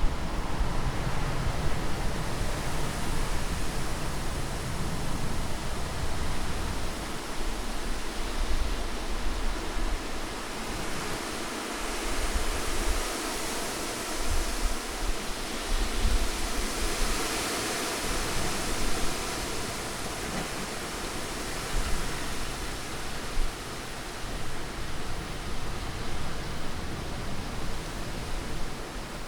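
Steady wind: a continuous rushing hiss that swells for a few seconds near the middle, with a low rumble coming and going underneath.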